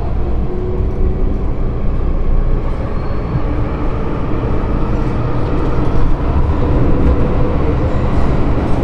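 MTR M-train electric metro train running along the line, a steady rumble of wheels and track.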